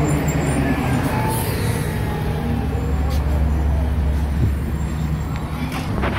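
Diesel city bus engine running close by amid street traffic, a steady low drone that is strongest in the middle. A short hiss comes about one and a half seconds in.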